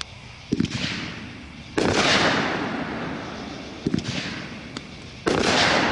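Hardcore Pyro Night Train 500-gram firework cake firing its shots. Low launch thumps alternate with loud bursts; the two bursts, about two seconds in and just after five seconds, are the loudest, each trailing off in a long hiss.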